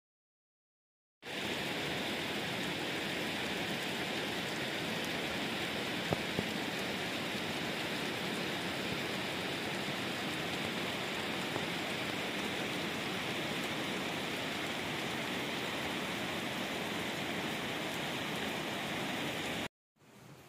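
Small waterfall trickling and splashing down a mossy rock face: a steady rush of falling water that starts about a second in and cuts off abruptly near the end.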